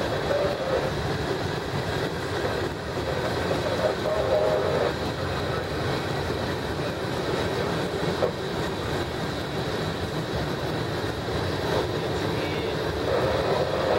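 Freight cars of a manifest train (hopper cars, boxcars and tank cars) rolling past: a steady rumble and clatter of steel wheels on the rails.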